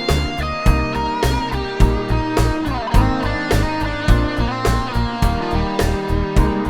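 Background music: a guitar-led instrumental track with a steady drum beat.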